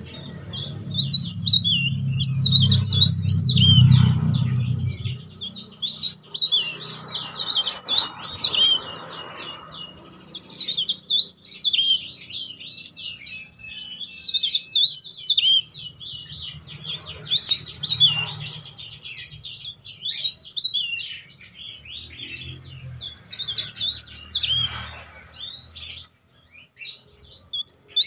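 Caged cikrak daun, a small leaf warbler, singing loud, shrill, rapid twittering song in repeated bouts of a few seconds each with short pauses between. A low rumble sits underneath during the first few seconds.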